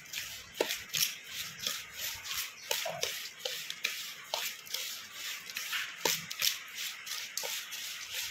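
Steel spoon stirring a dry pickle spice mix of red chilli powder and salt in a stainless steel bowl: quick, repeated gritty scraping strokes with light clinks of spoon against the bowl.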